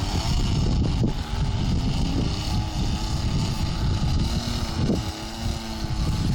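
Wind buffeting the microphone over the steady, distant drone of a radio-controlled model plane's motor and propeller in flight.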